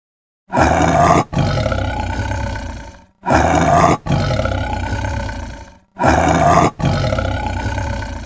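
A big cat roaring: the same roar heard three times, one after another, each with a brief break about three quarters of a second in before it trails off.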